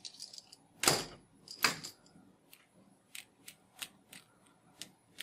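Clicks and light taps of small plastic toys being handled: two louder clicks about a second in, then a run of small, irregular ticks.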